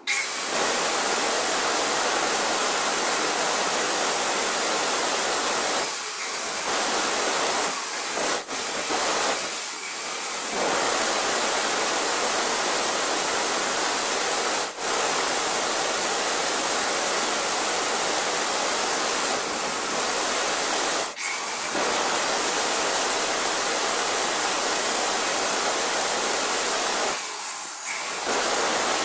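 Electric angle grinder with a cutting disc sawing into a granite countertop along the sink outline: a loud, steady grinding hiss with a few momentary dips.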